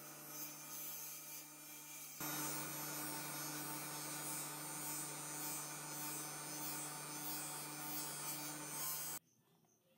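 Steady electrical hum with a faint hiss. It steps louder about two seconds in and cuts off abruptly near the end.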